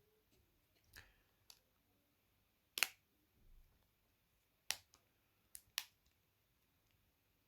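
Scattered sharp clicks of a plastic flip phone being handled, about six in all, the loudest about three seconds in.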